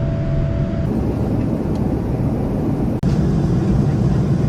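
Loud, steady rushing roar of a jet airliner, cut together from a few clips with abrupt changes about a second in and again about three seconds in.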